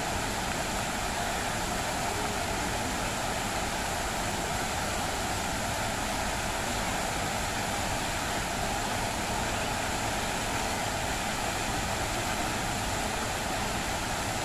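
Steady rushing and splashing of a large fountain's many water jets falling back into the basin.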